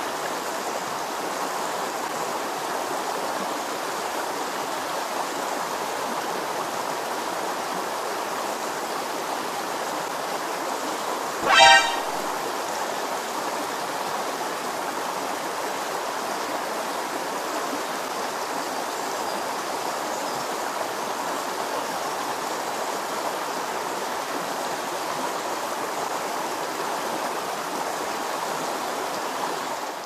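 Mountain stream water flowing steadily. One short pitched sound, louder than the water, cuts in once about twelve seconds in.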